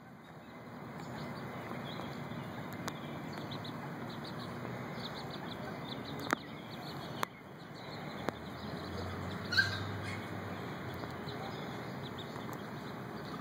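Mallard ducklings peeping faintly in short, high notes scattered over steady background noise, with a brighter peep about ten seconds in. Two sharp clicks stand out, about six and seven seconds in.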